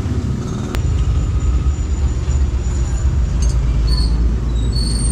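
A loud, low rumble that swells just under a second in, with one sharp click as it starts.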